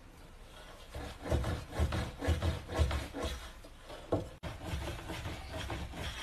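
Tabletop handling sounds of dumplings being made by hand: chopsticks scraping filling in a steel bowl, hands pressing dough, and rubbing on the table. A string of irregular dull knocks comes between about one and three seconds in.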